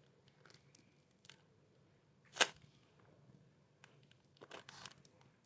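Handling noises from squishy toys and their plastic wrapping being picked up: a few faint clicks, one short sharp snap a little over two seconds in, and a brief rustle near the end.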